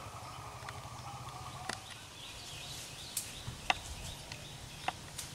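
Outdoor ambience with a steady low hum and a high, even drone that stops under two seconds in. After that come several short, sharp clicks and a few faint chirps.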